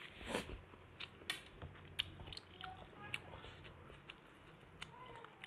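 Faint chewing of a mouthful of fried egg and instant noodles, with scattered sharp clicks, a metal fork tapping and scraping on a ceramic plate.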